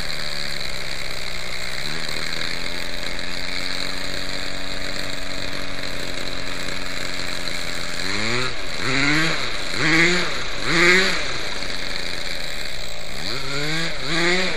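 Small nitro glow engine of an RC helicopter running low on the throttle trim, holding a steady note at first, then surging up and down in pitch about once a second from about halfway through. This is a rough idle that will not settle: the owner says it has started to rattle and won't come down to a smooth idle.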